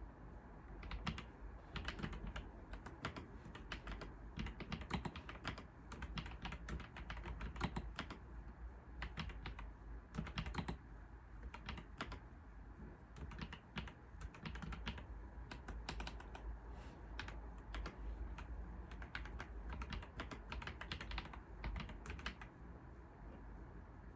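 Computer keyboard typing: quick, irregular runs of key clicks with short pauses between them, as text is being written.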